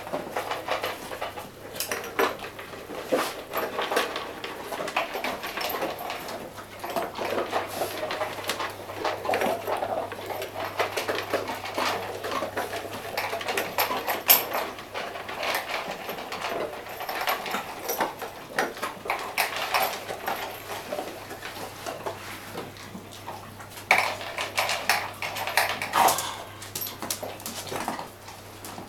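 A dog eating greedily from food bowls: chewing and licking, with many short clicks and knocks from the bowl.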